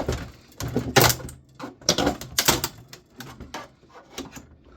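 Irregular sharp clicks, knocks and snaps of a plastic front bezel being pried and forced off a desktop computer case, the loudest knock about a second in.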